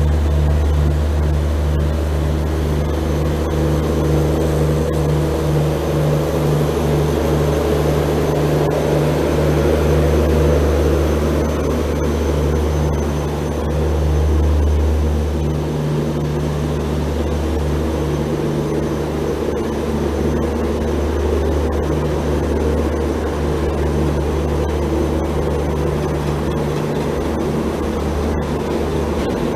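WDP-3A diesel-electric locomotive pulling a passenger train out of the station with a steady low engine drone, as double-decker passenger coaches roll past close by with faint clicks.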